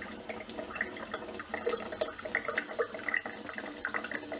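Thin stream of water running from a kitchen tap and splashing into a stainless-steel sink as a cat drinks from it: an irregular patter of small splashes and trickling.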